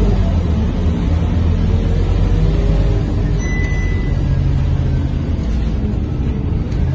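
Scania K230UB city bus under way, heard from inside the passenger cabin: its five-cylinder diesel engine and ZF automatic gearbox give a steady low rumble. A brief high tone sounds about halfway through.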